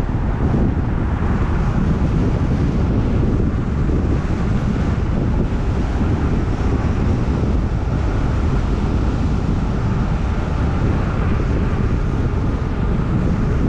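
Steady wind noise buffeting the microphone, a constant low-heavy rush with no breaks.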